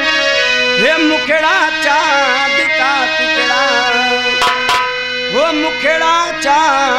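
Live folk theatre band playing: a reed-organ melody with held drone notes and a wavering tune, over hand-drum strokes. Two sharp drum hits come about four and a half seconds in.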